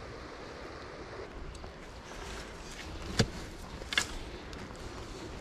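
Steady outdoor background hiss with two sharp clicks, about three and four seconds in.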